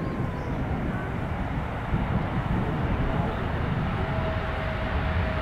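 Airbus A330-200's Rolls-Royce Trent 700 jet engines heard from a distance as the airliner rolls out on the runway after landing: a steady low rumble that grows louder about two seconds in, with a steady whine joining near the end.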